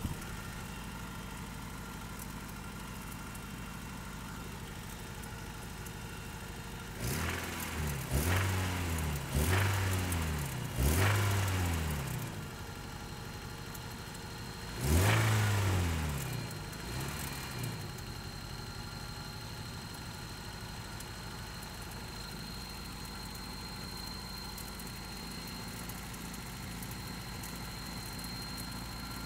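Toyota 22RE 2.4-litre four-cylinder engine idling, then revved in four quick blips from about seven seconds in and once more a few seconds later, each dropping back to idle. The owner suspects a noisy timing chain or rod knock.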